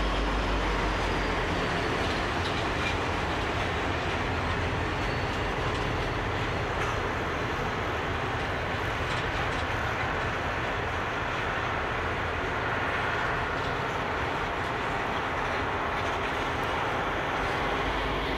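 Freight train's container wagons rolling past with a steady rumble of steel wheels on rail and occasional clicks over rail joints. The trailing diesel locomotive's low drone fades out about a second in.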